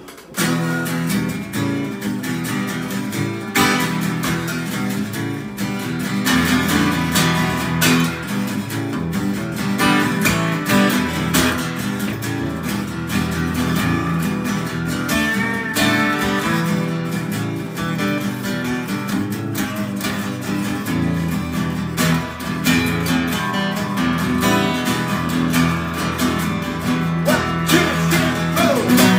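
Live guitar duo playing an instrumental passage, with an acoustic guitar strumming alongside an orange hollow-body electric guitar.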